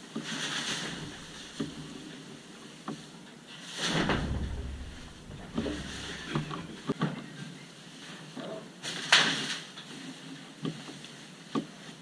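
Flakes of hay being pulled off bales and thrown down from a hayloft: rustling of dry hay in a few swells, the biggest about four seconds in with a dull thud and again about nine seconds in, with a few light knocks in between.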